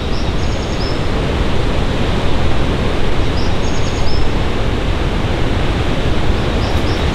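Steady rush of the K50 (Hang Én) waterfall nearby, a loud, even wash of falling water.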